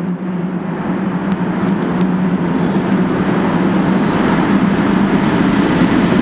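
BART train pulling into an underground station: a rumble of wheels on rail with a steady low hum, growing steadily louder as it approaches, with a few faint clicks.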